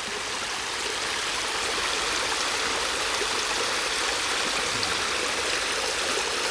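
Stream water running steadily over a small falls, the flow high after a night of heavy rain.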